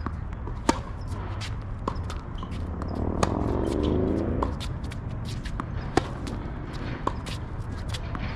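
Tennis ball impacts on a hard court: sharp knocks roughly a second apart, with fainter ticks between, over a steady low wind rumble on the microphone.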